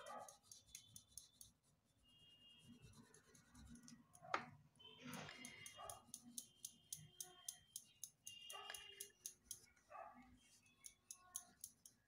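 Faint, quick scratching of an oil pastel on paper as grass is shaded in short strokes. It comes in runs of rapid ticks, with one sharper tap about four seconds in.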